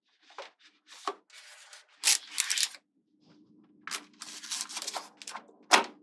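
Small magnetic balls clicking and rattling against each other as a built magnet-ball piece is handled and set in place, with rubbing and scraping between the clicks. The loudest, sharpest click comes near the end.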